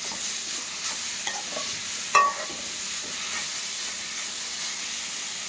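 Grated beetroot sizzling in oil in a metal kadai while a metal spoon stirs and scrapes through it, with scattered light clicks and one sharp clink of the spoon against the pan about two seconds in.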